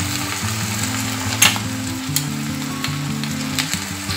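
Ginger-garlic and onion paste sizzling in hot mustard oil in a frying pan, a steady crackling hiss as the spatula works it, with one sharp click about one and a half seconds in. Soft background music runs underneath.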